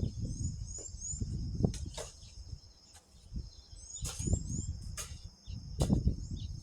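Steady high insect trilling with short rising bird chirps, over low gusts of wind buffeting the microphone. A few sharp knocks or scrapes come through, about two seconds in, around four to five seconds, and near six seconds.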